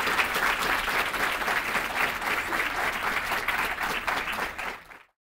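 Audience applauding: dense clapping that fades quickly and cuts off near the end.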